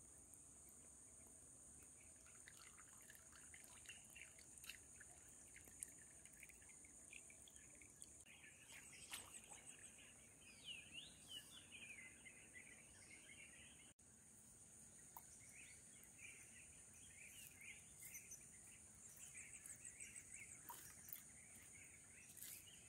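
Faint outdoor ambience: a steady high insect drone, with birds chirping on and off throughout.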